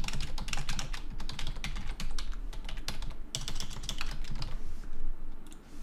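Computer keyboard typing in quick runs of keystrokes, with a short pause a little after three seconds in and fewer keystrokes near the end.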